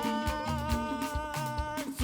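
Live gospel praise band playing an instrumental passage in an African praise style: a held chord rings over a steady beat of drums and bass.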